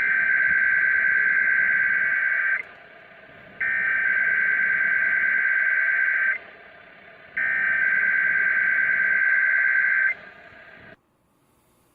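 Emergency Alert System SAME header: a burst of digital data tones sent three times, each about two and a half seconds long with a second's gap between, received over radio with hiss between the bursts. The hiss cuts off suddenly near the end.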